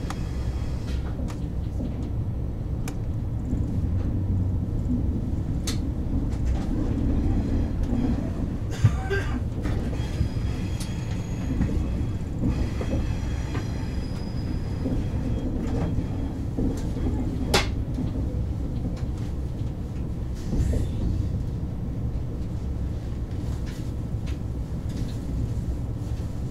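KTX high-speed train running, heard from inside the passenger cabin as a steady low rumble, with a few sharp clicks.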